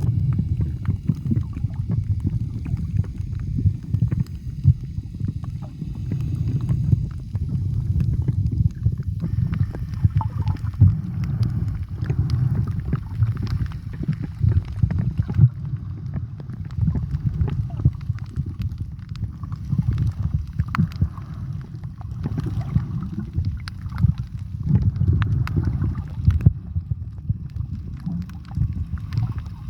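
Muffled water noise picked up by a camera underwater: a low, dense rumble of moving water with scattered small crackles.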